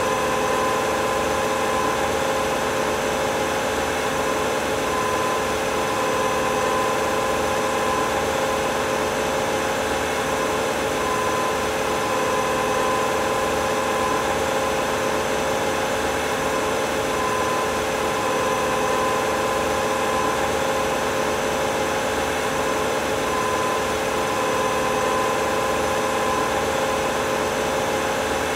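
2002 Mercury Sable wagon's V6 engine running steadily at medium rpm, heard close up from the engine bay. A high whine fades in and out every few seconds over the steady engine note.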